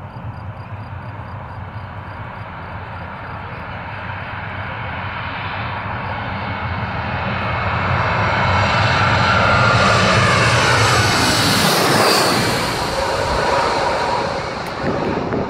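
Boeing 737-700 airliner's CFM56 turbofans on final approach, passing low overhead. The jet noise builds steadily, is loudest about ten to twelve seconds in, and drops in pitch as the aircraft passes, then eases slightly as it moves away over the runway.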